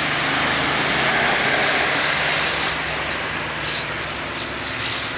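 Road traffic: a motor vehicle passes close by, its engine hum steady and its tyre and road noise swelling and then fading over the first few seconds. A few sharp clicks follow near the end.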